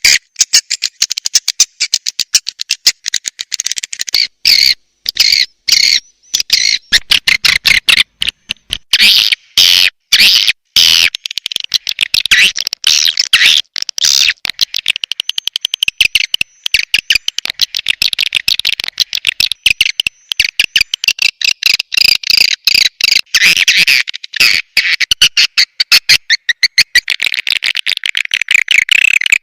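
Swiftlet calls: a loud, dense chattering of rapid, high twittering chirps and clicks, the kind of recording played as a call track to draw swiftlets into a nesting house.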